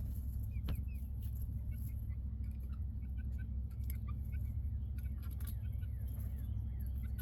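Chickens making short, soft chirps and peeps, scattered irregularly, with one longer rising peep about a second in. A steady low hum runs underneath.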